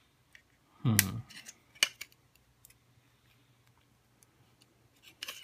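Hard plastic Mini 4WD body shell clicking and snapping as a thin metal tool pries its front bumper clip free, with one sharp crack about a second in and lighter clicks after. The owner suspects the shell has cracked slightly.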